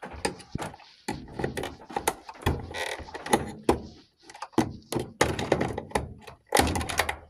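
Irregular knocks, clicks and rattles of hand work on a Samsung washer's parts as a piece is tugged and worked free with wire cutters.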